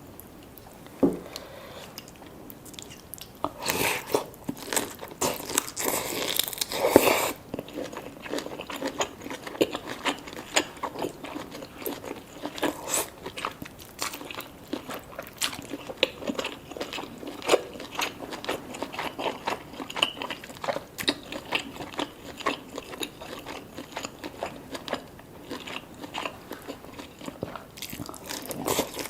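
Close-miked eating sounds: biting and chewing with many small, sharp crunching clicks. A louder, noisier crackling stretch comes about four to seven seconds in.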